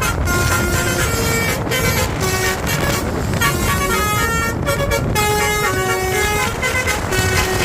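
Basuri 'telolet' multi-tone air horn on a bus playing a tune, its notes stepping up and down in pitch, over a steady low rumble of engine and road noise.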